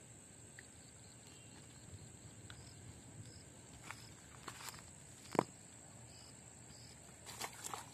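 Faint, steady high-pitched drone of insects, with scattered clicks and rustles of footsteps on rocks and a fish and plastic bag being handled; one sharp click about five seconds in is the loudest.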